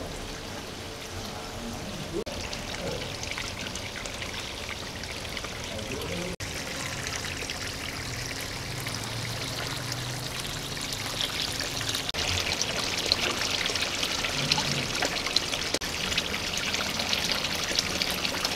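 Water pouring steadily from a sheet-waterfall spillway into an aquarium, splashing and bubbling where it hits the surface. It grows louder in the second half.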